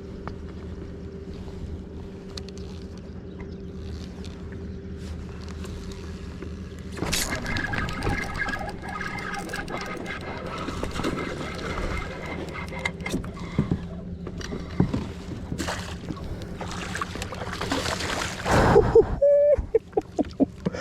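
Steady low hum from the boat while a bass is fought on rod and reel from a kayak. About a third of the way in the noise of line, reel and water picks up, and near the end there are loud splashes as the fish comes to the kayak.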